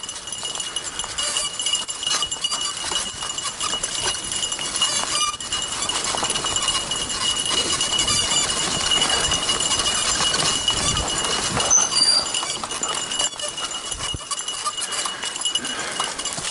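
Fat bike rolling fast along a leaf-covered dirt trail behind two running dogs: a continuous clatter and crunch of tyres and bike over the ground.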